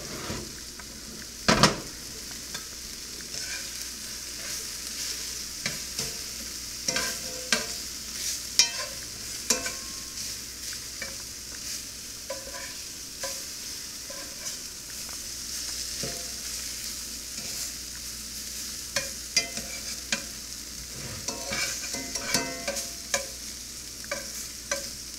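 Flour-dredged alligator meat frying in a cast-iron skillet with a thin film of spray olive oil, a steady sizzle. Metal tongs turning the pieces click and scrape against the pan now and then, with one louder knock about a second and a half in.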